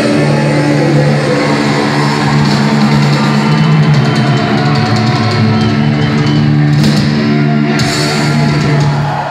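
Live thrash metal band with distorted guitars and bass holding a low, sustained chord over drums, with cymbal crashes near the end.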